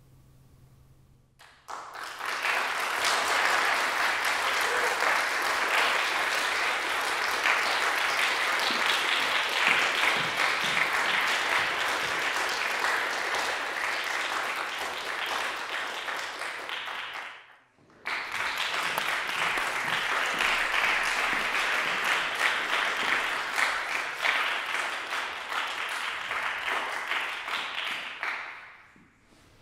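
Audience applauding. It starts about two seconds in, breaks off suddenly about halfway, picks up again straight away and dies away near the end.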